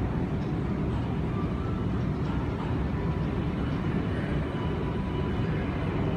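Steady low rumble and hiss of airport terminal background noise, even in level throughout, with faint thin tones higher up.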